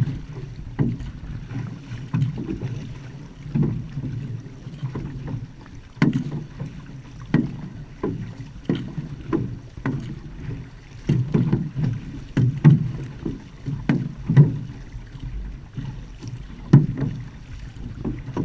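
Outrigger canoe (va'a) paddling: paddle blades catching the water in a steady stroke rhythm, a low splashing thud about once or twice a second, over the rush of water along the hull.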